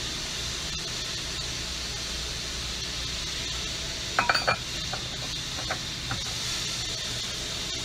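A quick cluster of sharp metal clinks about halfway through, then two lighter clicks, as hard metal parts knock together while being handled. Behind them is a steady hiss with a low hum.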